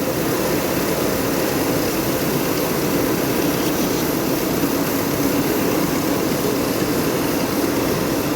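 Machinery running steadily: a continuous, even drone with no clear rhythm or separate knocks.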